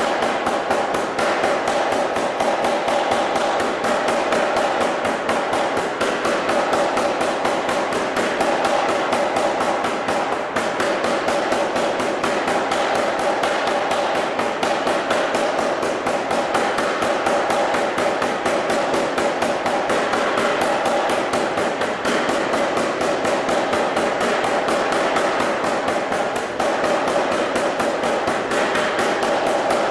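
Anyang self-contained air power hammer running continuously, its ram striking a glowing hot steel bar in a fast, even run of blows, with a metallic ring to each strike.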